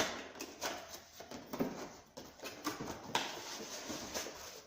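Irregular taps, clicks and rustles of packaging and parts being handled, as a boxed water ionizer kit is opened and unpacked.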